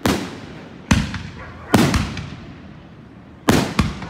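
A 2.5-inch, 36-shot fireworks cake firing shells in quick succession: sharp booms about once a second, some doubled, with a pause of more than a second before the last two.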